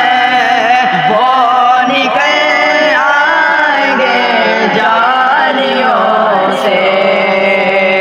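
Young male voices chanting an Urdu naat, drawing out long melismatic notes with wavering vibrato over a steady low drone.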